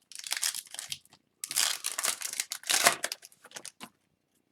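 Foil wrapper of a hockey card pack crinkling and tearing as it is opened, in two spells: a short one, then after a brief pause a longer one.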